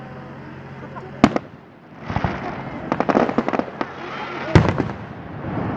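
Aerial fireworks: a sharp shell burst about a second in, then a quick run of crackling pops, and another loud bang about four and a half seconds in.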